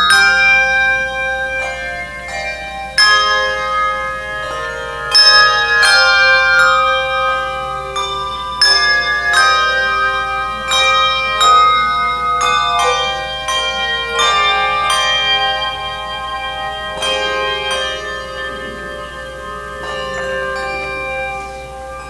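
A handbell choir ringing a hymn arrangement: struck bronze handbells sound chords and melody notes, each note ringing on long after it is struck, growing softer near the end.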